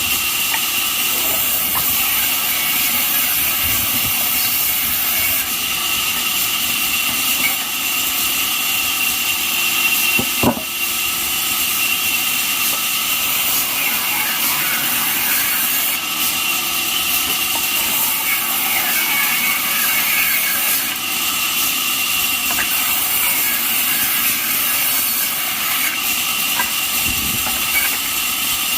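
Band sawmill running steadily, with a steady high whine over a loud hiss, and a single sharp knock about ten seconds in.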